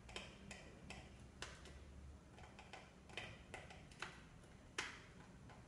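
Faint, irregular small clicks as a screwdriver turns a small screw out of the plastic battery cover of a handheld monitor, about seven in all, the loudest nearly five seconds in.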